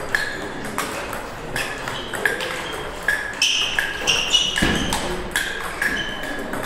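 Table tennis ball in a rally, clicking sharply off the paddles and bouncing on the table, in a quick irregular run of pinging hits. A dull thump comes about halfway through.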